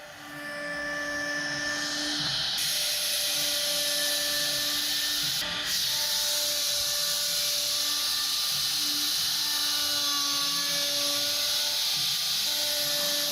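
A woodworking power tool running steadily with a high whine and a cutting hiss; the hiss gets louder about two and a half seconds in.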